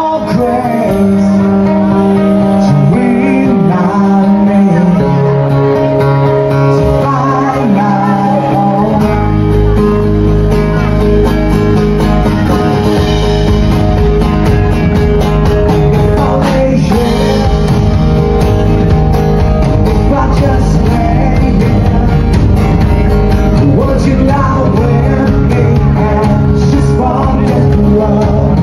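Live band playing a song: a man singing to his acoustic guitar, backed by electric bass and a drum kit. The band's sound gets fuller and heavier in the low end about nine seconds in.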